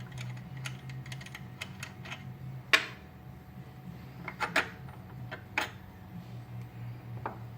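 Scattered light metallic clicks and clinks as the cutter wheel, shims and spacers are slid off the spindle of a key-cutting machine. The sharpest click comes just under 3 seconds in and a few more follow around 4 to 6 seconds, over a steady low hum.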